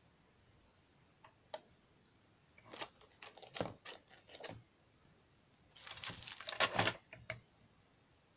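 Light clicks and taps of small craft items being handled and set down, then about a second of plastic packaging rustling, followed by a few more clicks.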